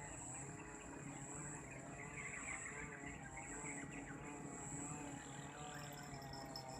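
Insects trilling steadily at a high pitch, swelling and fading, over a faint background of birdsong.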